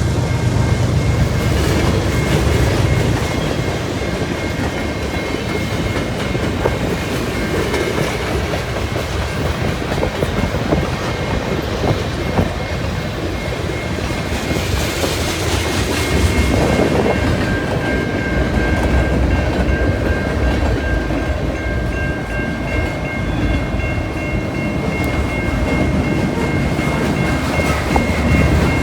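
CN freight train rolling past, its wheels clicking over the rail joints in a steady stream. A thin high ringing tone rides over it, strongest in the second half.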